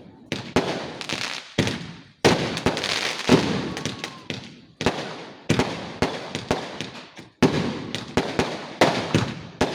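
Fireworks going off in a rapid barrage: loud sharp bangs every second or so, each with a rumbling echo that trails away, with quick crackling pops in between.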